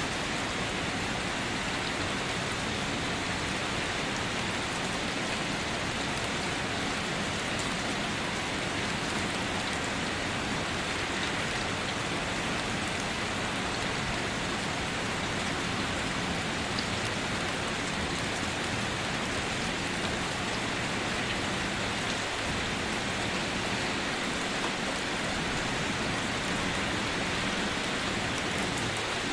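Steady rain falling, an even hiss of many drops on a surface, with faint scattered individual drop ticks.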